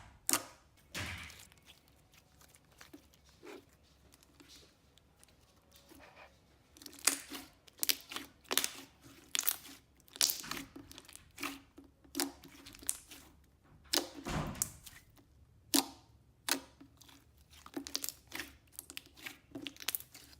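Thick, glossy banana milk slime being pressed and stretched by hand, giving irregular sticky pops and crackles. The sounds are sparse at first and come thick and fast from about a third of the way in.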